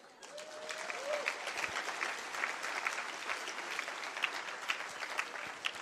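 Convention audience applauding: many hands clapping, building up in the first second, holding steady, and thinning near the end.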